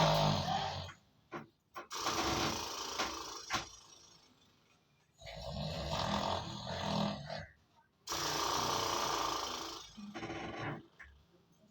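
A man snoring loudly and deliberately, four long drawn-out snores with short quiet gaps between them.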